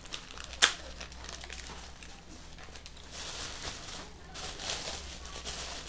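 Paper food wrapping and a thin plastic bag crinkling as they are handled, with one sharp click about half a second in.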